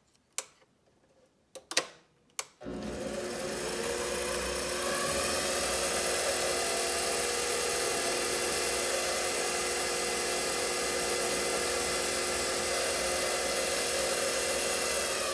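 King Canada 7x12 variable-speed mini metal lathe: a few clicks, then the motor starts about two and a half seconds in, its whine rising in pitch as the speed is turned up, and runs steadily while a lathe file chamfers the spinning Delrin plastic part. At the very end the whine begins to fall as the lathe slows.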